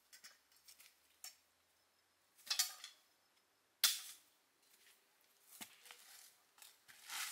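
A series of irregular sharp knocks and snaps, the loudest a sudden hit about four seconds in that dies away quickly.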